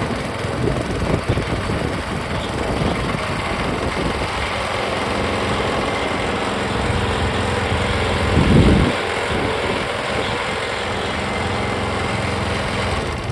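Gasoline engine of a trommel wash plant running steadily, turning the trommel drum. There is a brief louder low rumble about two-thirds of the way through.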